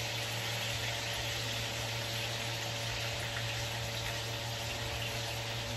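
Steak frying in butter in a pan, a steady even sizzle, with a constant low hum underneath.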